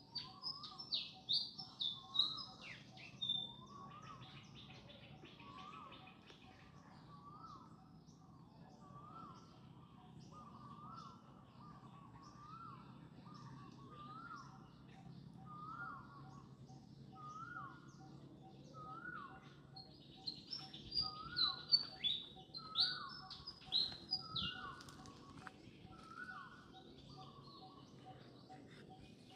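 Birds calling: one bird repeats a short rising-and-falling call about once a second, while bursts of high, sharp chirping come in at the start and again about two-thirds of the way through.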